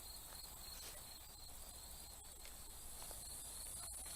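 Faint insects chirping in a steady, evenly pulsing rhythm, with a few light clicks.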